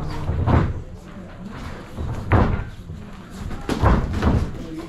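Sparring strikes landing: gloved punches and shin-guarded kicks hitting body and pads as a series of sharp thuds, about half a dozen, one loud blow about two seconds in and several close together near the end.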